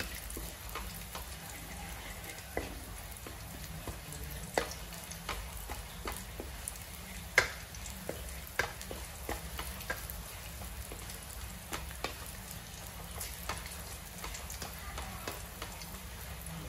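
Minced garlic and spring onion frying gently in a little oil in a wok. A wooden spatula stirs them, scraping and tapping against the pan in irregular clicks, a few of them louder knocks.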